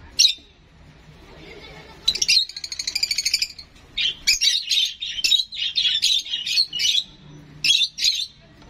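Rosy-faced lovebird chick giving shrill begging chirps while being hand-fed formula from a syringe: one short call, then a fast stuttering run of calls, then a long string of chirps and two last calls near the end.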